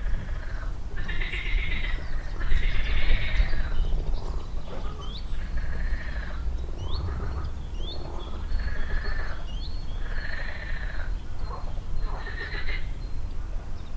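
Water frogs (pond frogs) calling in a pond: a run of about eight croaking calls, one every second or so, over a steady low rumble. A few short high chirps come in the middle.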